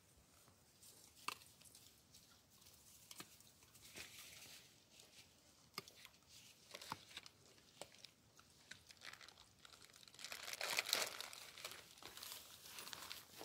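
Faint, scattered crackles and rustling close to the microphone, with a louder stretch of rustling about ten seconds in.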